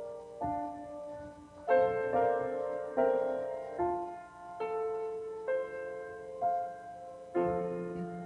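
Slow, quiet piano music: notes and chords struck about once a second, each left to ring and fade.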